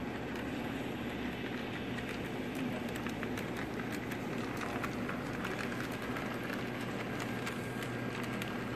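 HO scale model steam locomotive running on its track: a steady motor hum with rapid clicking of its wheels on the rails. The clicks come thick from about two seconds in as it runs close by.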